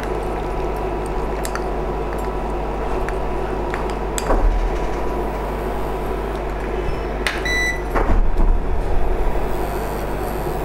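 Steady hum of an induction cooktop's cooling fan running under a pan of milk. A few knocks and one short ringing clink of a utensil against the metal pan come partway through.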